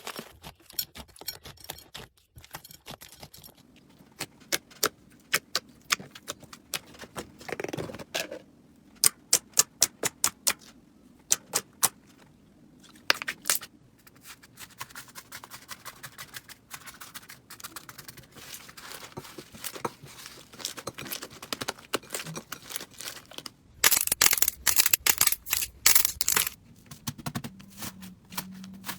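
Slime being squeezed and poked by hand: a run of sharp clicks and pops, with a denser, louder crackling stretch near the end.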